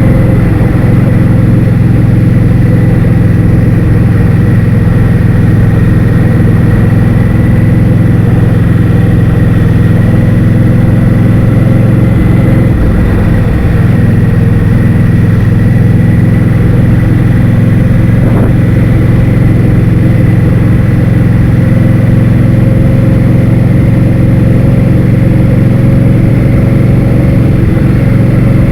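Heavy wind noise on the microphone while riding, a steady low rumble over a constant engine drone with a faint steady whine.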